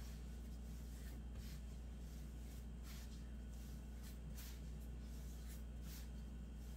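Hands kneading sourdough dough on a floured wooden counter: soft, irregular brushing and pressing strokes, over a steady low hum.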